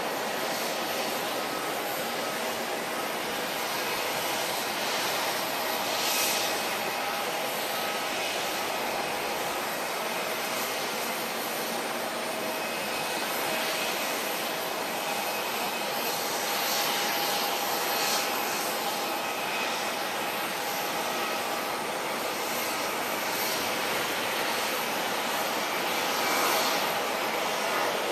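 Steady jet engine noise of a four-engine Airbus A340-300 with CFM56-5C turbofans climbing away after takeoff: an even hiss with faint steady whining tones.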